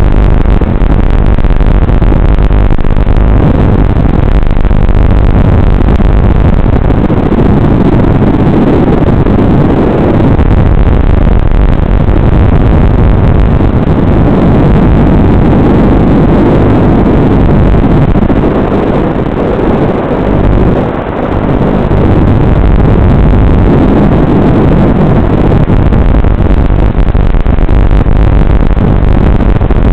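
FPV racing quadcopter's motors and propellers, picked up over the analog video link's audio: a loud, distorted buzzing that swells and drops with the throttle, dipping briefly about twenty seconds in.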